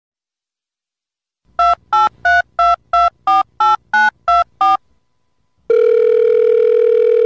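Telephone keypad touch-tones dialing: ten short two-tone beeps about three a second, followed after a pause by one long steady tone of about two seconds, like a ringing tone on the line.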